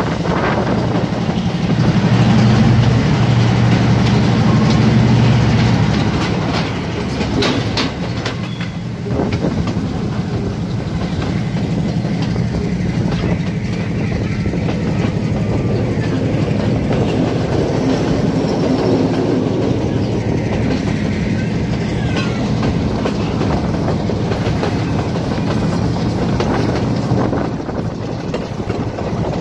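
Passenger train running along the track, heard from an open carriage window: a steady rumble of wheels on rail with clickety-clack. The rumble is louder for a few seconds near the start, and a few sharp clicks come about seven to nine seconds in.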